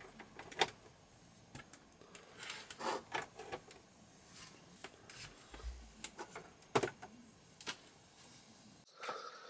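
Cable plugs being pushed into the rear ports of a Sony VAIO all-in-one PC: USB plugs and a DC power plug clicking and scraping as they seat in their sockets, with the cables rubbing. The sharpest clicks come just under a second in and about seven seconds in.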